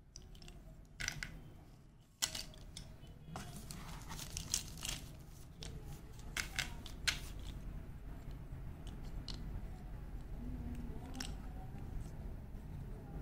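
A handful of slate pencils handled in the hand: scattered sharp clicks as the sticks knock together, over steady rustling and handling noise.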